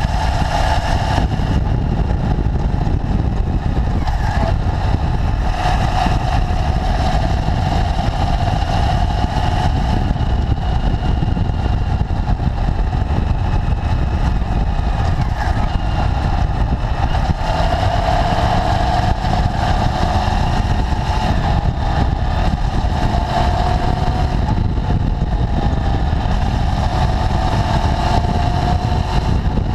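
Motorcycle engine running at a steady road pace, heard from a camera mounted low on the bike, with strong wind rush over the microphone. The engine note drifts gently up and down.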